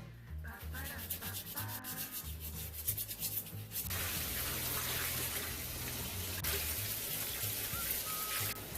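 Quick rubbing strokes, then a tap running steadily from about four seconds in, with soft background music.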